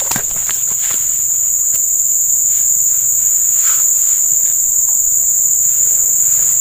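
Insects trilling in a steady, high-pitched drone, with a few faint knocks and rustles beneath it.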